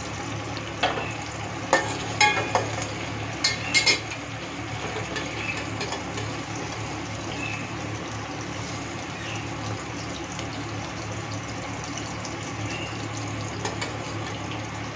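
A steel slotted spoon clinks and scrapes against a stainless-steel handi and a steel plate while lifting sautéed onion, tomato and green chili out of hot oil. There are several sharp, ringing clinks in the first four seconds, over a steady low sizzle of oil in the pan.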